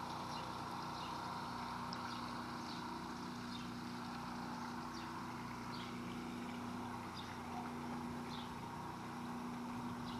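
Steady mechanical hum with a constant low tone, overlaid by short, faint high chirps every second or so.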